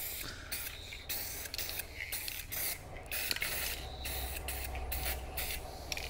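Aerosol can of wheel silver paint hissing in a series of short bursts as the trigger is pressed and released. It is held close to lay a heavy second coat on a plastic wheel trim.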